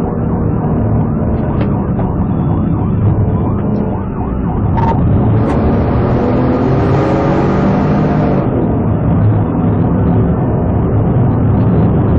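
Police patrol car in a pursuit: its engine and road noise run loud and steady while the siren wails in the background. A rushing hiss swells midway for a few seconds.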